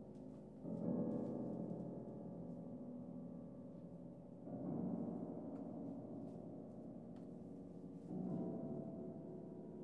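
Steinway grand piano playing low, deep chords, struck three times about three and a half seconds apart, each left to ring and slowly die away under the sustain pedal.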